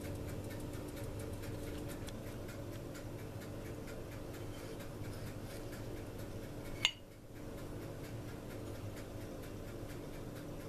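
Faint steady hum with light ticking throughout, and one sharp click about seven seconds in.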